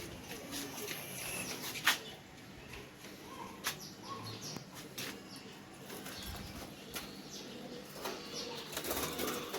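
Caged pigeons and small birds flapping their wings, with scattered short chirps and a few sharp knocks.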